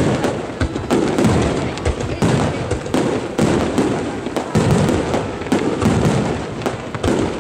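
Aerial firework shells bursting in rapid succession: a dense, continuous run of bangs and crackling, several per second, with no pause.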